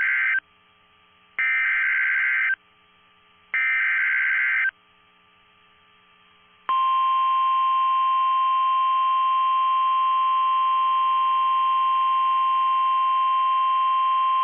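NOAA Weather Radio emergency alert: the end of one SAME digital header burst, then two more one-second, harsh, warbling data bursts about a second apart. Nearly 7 s in comes the steady 1050 Hz warning alarm tone. The header encodes the severe thunderstorm warning, and the long tone signals a warning that sets off alert receivers.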